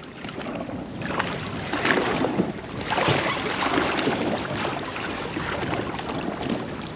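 Water splashing and sloshing against a small boat, building up about a second in, with wind buffeting the microphone.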